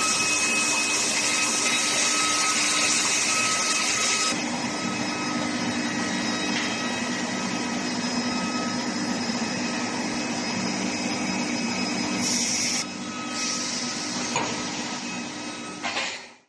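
Steady industrial machinery noise: a hum with several steady tones under a high hiss. The hiss drops away about four seconds in, and the sound cuts off suddenly near the end.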